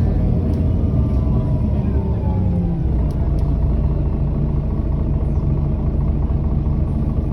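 Mercedes-Benz O530G Citaro G articulated bus engine running under way. A low rumble with tones that fall in pitch over the first three seconds, then a steady note.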